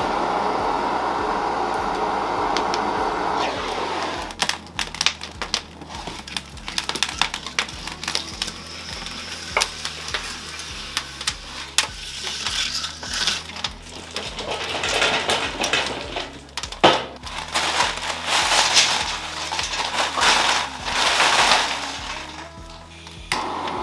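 Food-preparation handling sounds. A steady rushing noise for the first few seconds gives way to a long run of sharp clicks, knocks and scraping hiss from utensils and food, over quiet background music.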